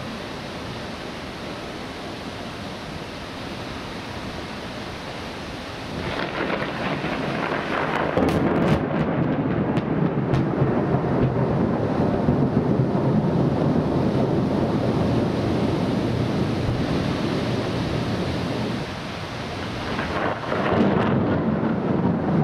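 Thunderstorm: a steady hiss of heavy rain, joined about six seconds in by a long rolling rumble of thunder that swells and carries on. It eases briefly near the end, then swells again.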